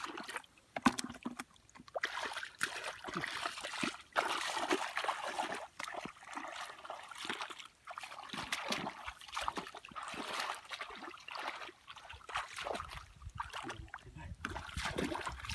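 Water splashing and sloshing in irregular strokes, as hands work through shallow field water feeling for fish. It is sparse for the first couple of seconds, then nearly continuous.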